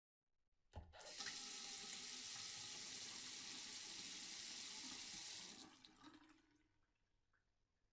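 Bathroom sink tap turned on with a click about a second in. Water runs steadily from the faucet for about four and a half seconds, then the tap is turned off, with a few faint ticks as the flow stops.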